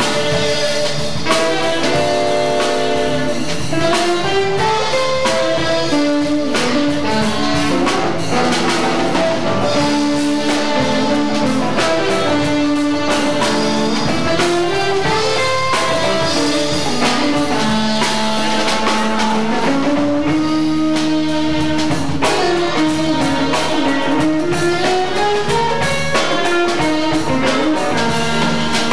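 Live jazz band of saxophone, electric guitar, electric bass and drum kit playing, a running melodic line weaving up and down over the drums.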